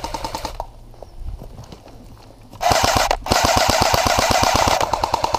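AK-style airsoft rifle firing full-auto, a rapid even stream of shots over a steady motor whine. It starts about two and a half seconds in, breaks off for a moment, then runs on.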